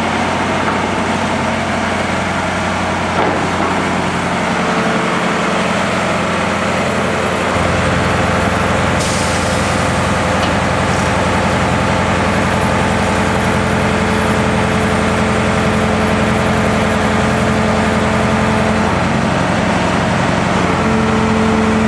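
Crane engine running steadily while hoisting a rooftop air-conditioning unit; it grows deeper and slightly louder about seven seconds in. A short hiss of air comes about nine seconds in.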